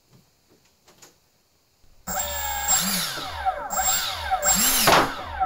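Freewing 70 mm electric ducted fan on 4S cells starting up about two seconds in. Its whine rises and falls several times with the throttle. Mixed in is the noise of a nearby model jet being blown against the wall by the fan's blast.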